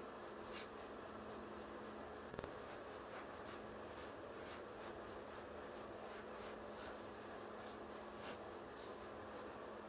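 Faint, irregular scraping strokes of a plastic spreader smearing body filler across the metal body of a lathe, over a steady low hum.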